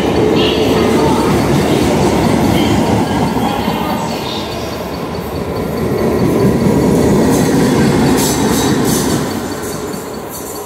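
Mumbai Western Railway EMU suburban train running past along the platform, with loud wheel-on-rail noise from its coaches and a run of sharp clicks about eight seconds in. The noise fades near the end as the last coach goes by.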